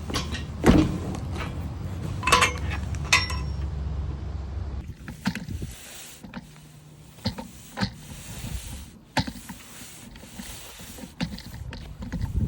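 Metal clanking of a steel lawn leveling rake: three sharp ringing clanks over a steady low rumble, then scattered lighter taps and scrapes.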